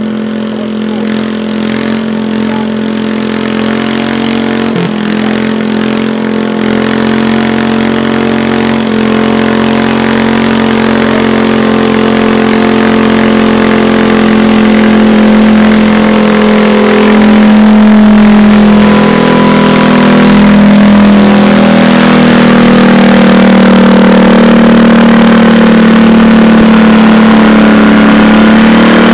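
Garden tractor engine idling at a steady speed close by, growing louder over the first half and then holding.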